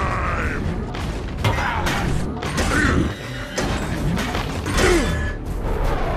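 Movie-style Transformers robot sound effects: mechanical whirs that glide up and down in pitch, mixed with repeated metallic clanks and hits, over background music.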